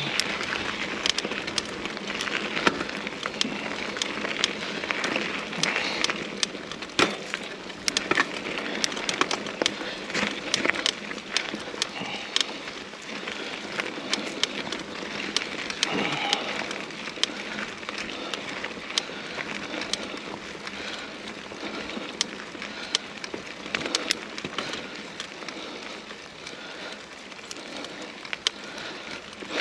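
Mountain bike riding along a trail: steady tyre and trail noise with frequent sharp clicks and rattles throughout.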